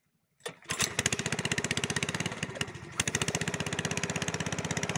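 Long-tail boat's engine running under way: a rapid, even train of firing pulses that starts about half a second in.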